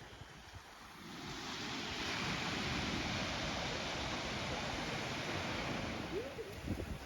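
Ocean surf: a wave swells up about a second in, washes for several seconds and eases off near the end.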